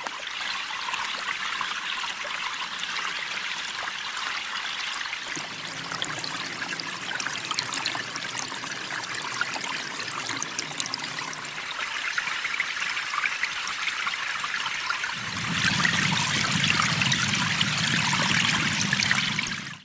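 Steady trickling, rushing noise like running water. A low hum joins about fifteen seconds in, and the sound grows louder.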